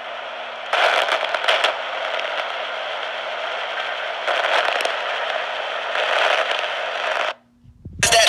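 Weather radio receiver static: a steady hiss with patches of crackle. About seven seconds in it cuts off abruptly into near silence, and a short loud burst of noise follows just before the end.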